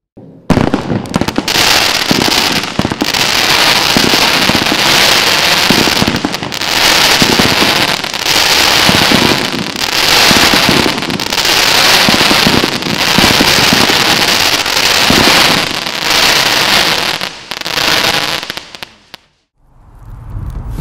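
Geisha 1534 Barracuda 10-shot firework cake firing: a sharp start about half a second in, then dense crackling and fizzing from its crackling mine and fish effects, swelling and easing in waves about every second and a half, dying away near the end.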